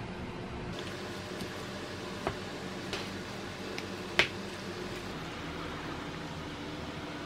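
Wooden spoon mixing rice and toppings in a metal lunchbox: soft squishing with a few short clinks against the tin, the sharpest about four seconds in, over a steady low hum.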